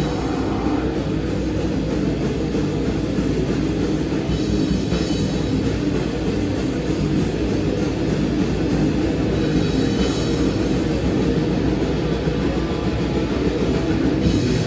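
A live band playing loud, heavy distorted guitar music with drums, a dense sound weighted to the low end that carries on without a break.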